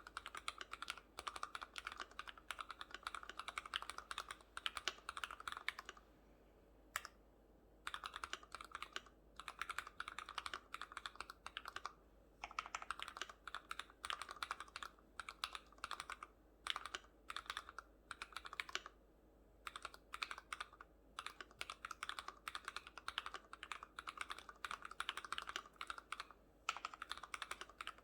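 Typing on an Archorn FX2 mechanical keyboard with Cherry MX RGB Red linear switches, lubricated with Super Lube spray, with stock keycaps and foam dampening inside the case. The keystrokes come in fast continuous runs, broken by brief pauses a few times, the longest about six seconds in.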